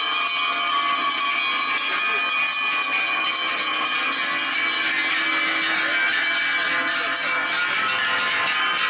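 Many large cowbells worn by a passing herd of cows, clanging and ringing together in a dense, continuous jangle.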